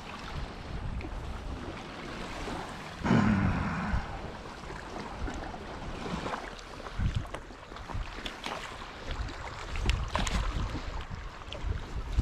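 Sea water sloshing and wind buffeting the microphone, with one louder surge of water about three seconds in.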